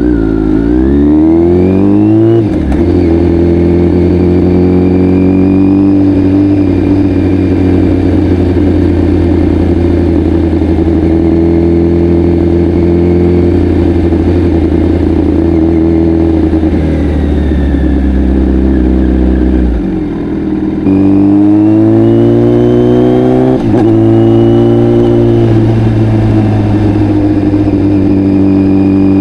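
Kawasaki Z900's inline-four engine through an Akrapovic full exhaust, revving up and shifting up about two seconds in, then holding a steady cruise. About twenty seconds in it drops off briefly, then pulls up again with another upshift a few seconds later before settling back to a steady run.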